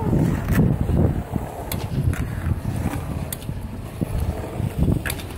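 Skateboard wheels rolling on a concrete bowl: a steady low rumble, broken by a few sharp clacks.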